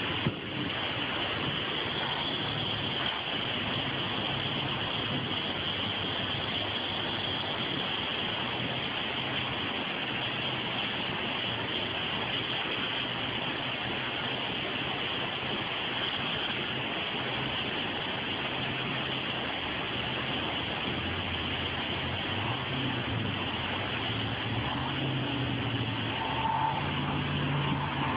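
Rushing river water, loud and steady, with the engine of a heavy log truck running under load as it wades through the current; the engine comes up more clearly near the end.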